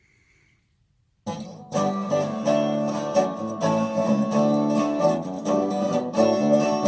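Near silence, then about a second in an upbeat country song starts: an instrumental intro of strummed acoustic guitar and banjo, sounding clean with no crackle.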